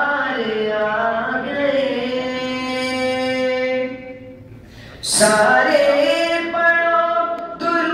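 Voices chanting the darood, blessings on the Prophet, in long, drawn-out melodic phrases. A break of about a second comes near the middle, then the chant returns louder.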